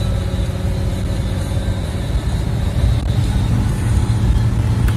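Car interior noise while driving on a wet road: a steady low rumble of engine and tyres.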